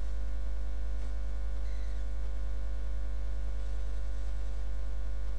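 Steady low electrical hum carried on the recording, with a stack of faint steady overtones above it and an unchanging level.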